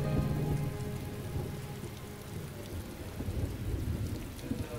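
Steady rain falling, with a low rumble beneath it.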